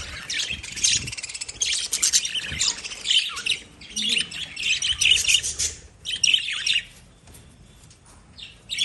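Lovebirds chirping in rapid, high-pitched bursts, dropping off for about a second and a half near the end before starting again.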